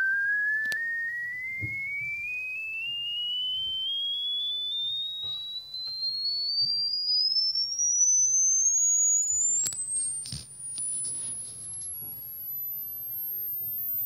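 A pure sine tone from a tablet frequency-generator app, sweeping smoothly and steadily upward in pitch from a high whistle to a very high, thin tone, as a hearing-test sweep toward the upper limit of hearing. A couple of faint clicks about ten seconds in.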